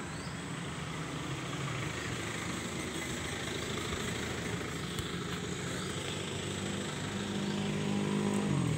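A small engine running steadily, growing louder in the last couple of seconds and dropping in pitch just before the end, over a steady hiss.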